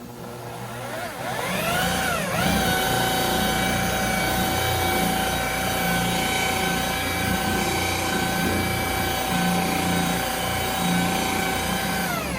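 Electric car polisher buffing paint with a mid-grade compound. It spins up with a rising whine, dips briefly in pitch about two seconds in, runs at a steady pitch for about ten seconds, then stops suddenly.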